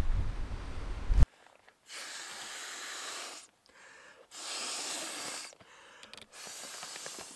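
Three long breaths blown by mouth into the valve of a Sea to Summit inflatable pillow, each about a second and a half long with short pauses between. In the first second, before the breaths, there is a louder low rumble that ends in a sharp knock.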